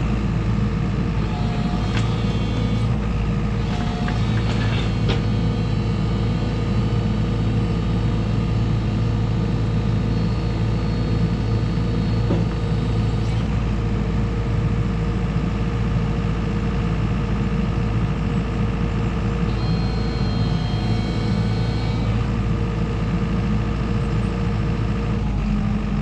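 JCB JS145WT wheeled excavator's diesel engine running steadily while the boom and bucket move slowly. A high whine comes in twice for a few seconds.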